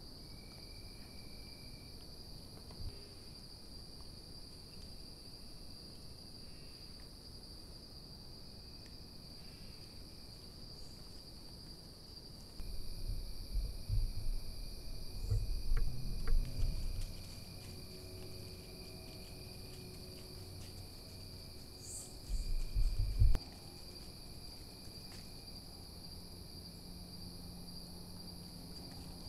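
Steady high-pitched chorus of crickets and other insects at dusk. Twice a low rumbling noise rises over it: for several seconds around the middle, and briefly again later.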